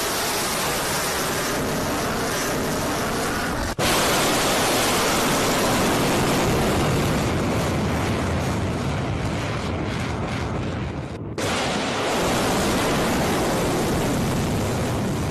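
Ballistic missile rocket motor at launch, a continuous heavy rush of noise across all pitches that switches abruptly twice, about four seconds in and after eleven seconds.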